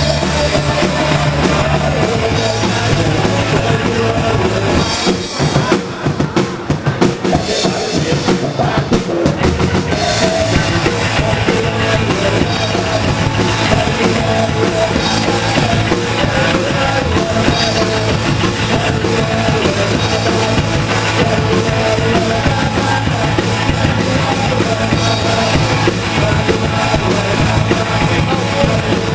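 Live rock band playing loud, with drum kit and bass driving a steady beat. About five to nine seconds in, the playing breaks into stops and separate drum hits before the full band comes back in.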